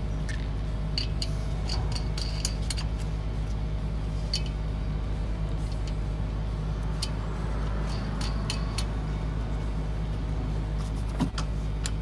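Steady low mechanical hum, with scattered light metallic clinks and a louder knock near the end.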